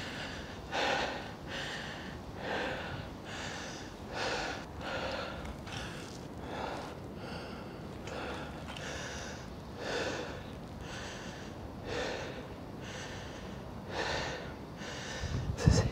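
A man breathing hard and rhythmically, a little more than one breath a second: panting from climbing the floors of a tall building.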